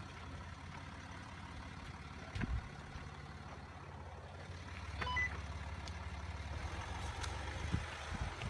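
Land Rover Discovery 4 engine running at low revs as the vehicle crawls through a deep rut, with a dull thump about two and a half seconds in and a short high beep about five seconds in.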